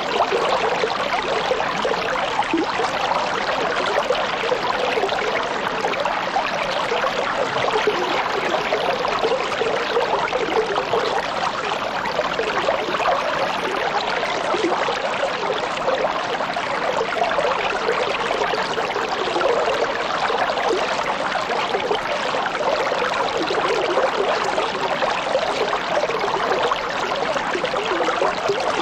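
Small fish-pond waterfall splashing steadily, water spilling and trickling into the pond without pause.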